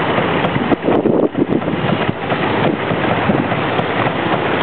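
Street traffic noise from motorbikes and cars circling a busy roundabout below, mixed with steady wind buffeting the microphone.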